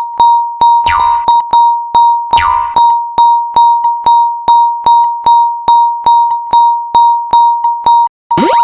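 Japanese railroad crossing (fumikiri) electronic warning bell, ringing its single repeated 'kan-kan' tone about two and a half strikes a second. A cartoon sound effect falling in pitch cuts across it about a second in and again at two and a half seconds. Near the end the bell stops for a moment and a sweep rising in pitch follows.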